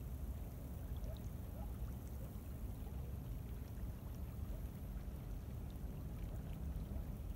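Steady low rumble of wind buffeting the microphone, over the wash of a flowing river.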